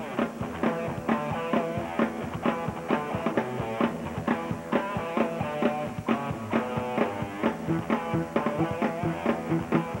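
Background rock music with guitar and a drum kit playing a steady beat.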